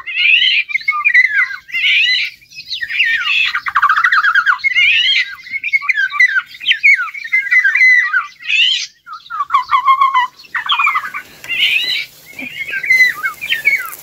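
Eurasian golden oriole calls: a dense, unbroken run of quick whistled and chattering notes, broken twice by harsh, rasping calls.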